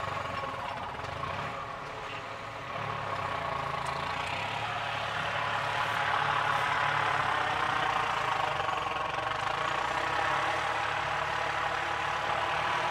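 Turbocharged Swaraj 855 tractor's three-cylinder diesel engine running under load as it pulls a weighted cultivator through tilled soil. The engine note is steady and grows a little louder about three seconds in and again around six seconds.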